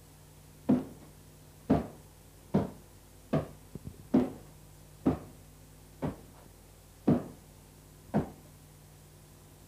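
Slow, heavy footsteps climbing stairs, about one step a second, over a steady low hum.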